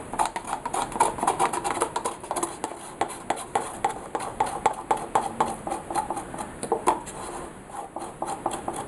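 Paper cups handled, tapped and scraped as acrylic paint is poured and scraped from one cup into another: a fast, irregular run of small clicks and scrapes that thins out near the end.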